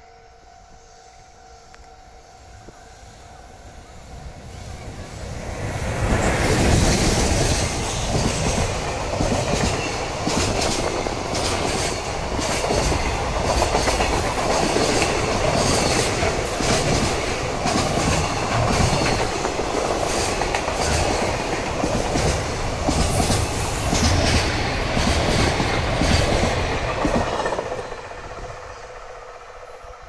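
A JR Freight EH500 electric locomotive hauling a long container freight train passes slowly. It grows louder over the first several seconds, then the wagons' wheels clatter rhythmically over the rail joints for about twenty seconds, and the sound fades near the end as the tail goes by. Steady level-crossing warning tones sound at the start and come back faintly at the end.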